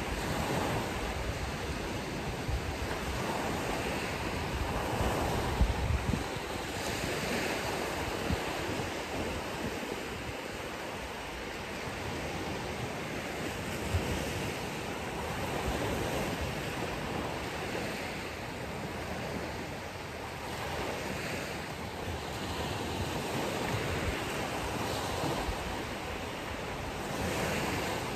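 Ocean waves breaking and washing on a beach, swelling and easing every few seconds, with some wind buffeting the microphone now and then.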